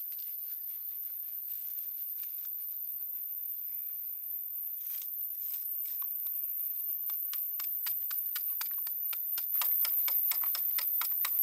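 Insects: a steady, very high-pitched whine with a fast ticking that speeds up and grows louder through the second half. A few faint scrapes come about five seconds in.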